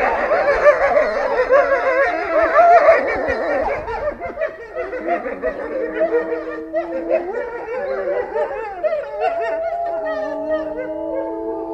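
A pack of wolves howling in chorus. It starts abruptly with a dense tangle of wavering yips and howls for the first four seconds or so, then settles into several long, steady howls at different pitches overlapping one another.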